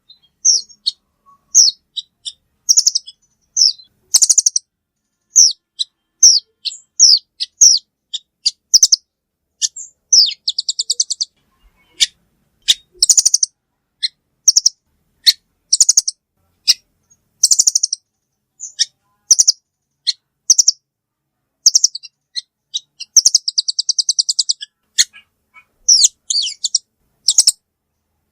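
Velvet-fronted nuthatch (the red-billed 'rambatan paruh merah') calling: sharp, high, short chirps repeated in irregular runs, broken by fast rattling trills about ten seconds in and again near 23 seconds.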